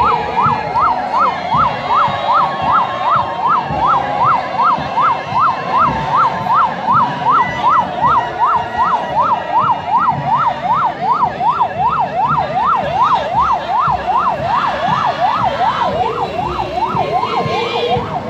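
Vehicle siren in a fast yelp, its pitch sweeping up and down about two and a half times a second.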